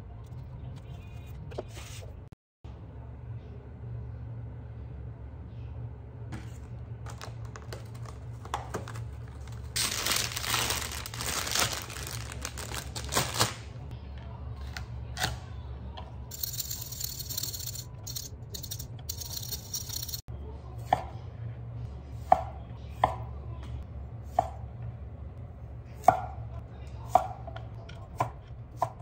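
Chef's knife chopping asparagus on a wooden cutting board: a series of sharp knocks, about one a second, through the last several seconds, over a low steady hum. Earlier there are a few seconds of louder noise.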